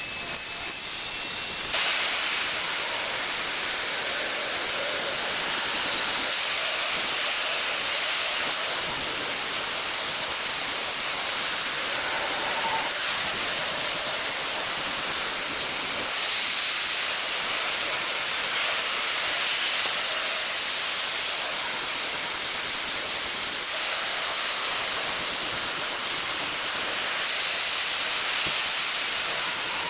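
A small electric motor running steadily: a high whine over a hiss, jumping higher in pitch and a little louder about two seconds in.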